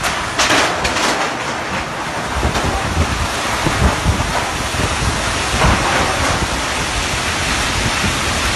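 Strong storm wind blowing in gusts, with a steady rushing noise and heavy low buffeting on the microphone from about two seconds in.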